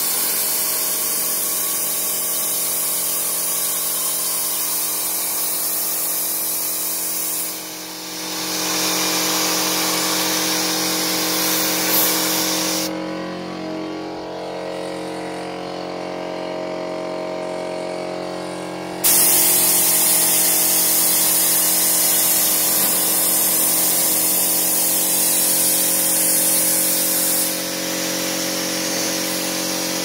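Compressed-air paint spray gun hissing as it sprays, stopping for about six seconds midway and then spraying again. A steady air-compressor hum runs underneath throughout.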